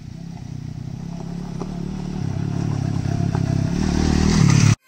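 Motorcycle engine running as the bike rides toward the listener on a dirt track, growing steadily louder as it approaches, with a few small clicks along the way. The sound cuts off abruptly near the end.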